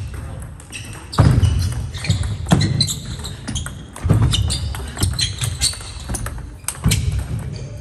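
Table tennis rally: the ball clicking back and forth off the paddles and the table, with heavier thumps of the players' footwork and brief shoe squeaks on the hall floor.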